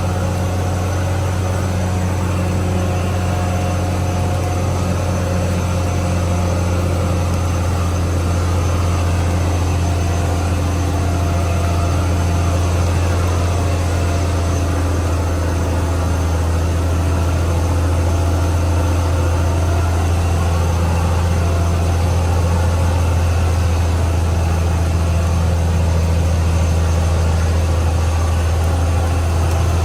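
Caterpillar D6R XL bulldozer's diesel engine running at a steady speed, a deep, even drone with no changes in level.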